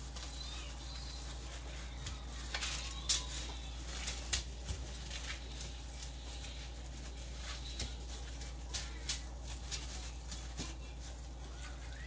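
Raw chicken pieces being turned over by hand, with scattered soft taps and clicks, over a steady low hum.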